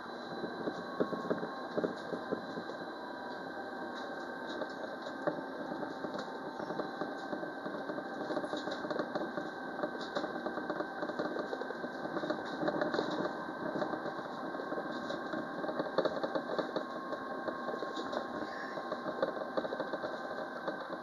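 Alstom Citadis Dualis tram-train running between stops, heard from the cab: a steady running drone with thin steady whine tones and frequent light clicks and rattles.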